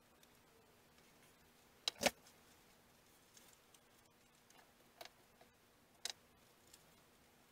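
A few faint, sharp clicks and taps as balsa strips and small tools are handled on a workbench, the loudest about two seconds in, over a faint steady hum.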